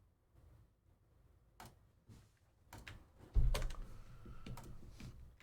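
Computer keyboard typing and scattered clicks, with one heavier thump about three and a half seconds in.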